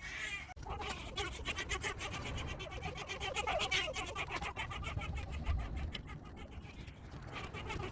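Rapid, irregular clicking and crackling of a taped wiring-harness bundle and plastic trim as it is pushed and stuffed into the steering column.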